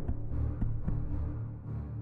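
Background music with low held notes.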